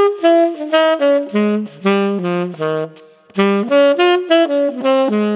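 Tenor saxophone, played through a Mouthpiece Cafe Espresso tenor mouthpiece, in a fast jazz line of short separate notes. The line breaks off briefly about three seconds in, then ends on a long low held note.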